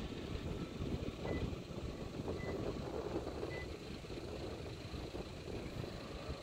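Distant jet airliner taxiing, heard as a steady low rumble with a faint engine whine, under wind noise on the microphone. Three short high beeps sound about a second apart in the first half.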